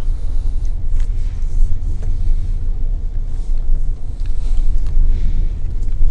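Steady low engine and road rumble inside a GM truck's cab as it drives slowly, with a few faint clicks.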